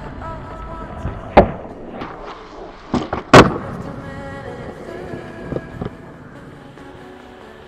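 Skateboard hitting concrete: a sharp clack about a second and a half in, then a double clack about three seconds in, the second one the loudest, as the board is popped and lands.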